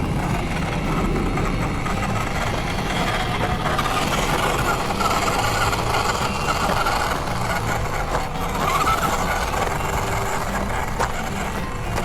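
Electric motor of a 1/10-scale MN Model MN222 RC crawler whining as it drives over rough ground. The whine rises and falls in pitch several times.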